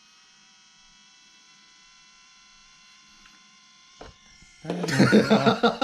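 Small cooling fan inside a Qingping air quality monitor running with a faint, steady, high-pitched electric buzz, the abnormal noise of a failing fan. There is a click about four seconds in, and a voice comes in loudly near the end.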